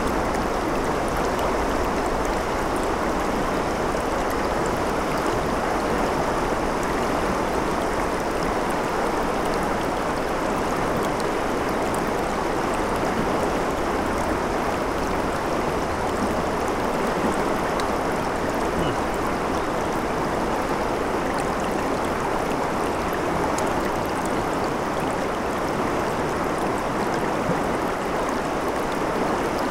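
Shallow river water flowing over a rocky bed and breaking around boulders: a steady, unbroken rush of water.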